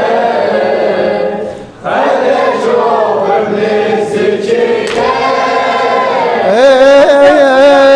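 Unaccompanied group voices singing a drawn-out line of an Arabic Shia lament (latmiyya), with a brief break about two seconds in. Near the end a stronger sung line with a wavering pitch comes in.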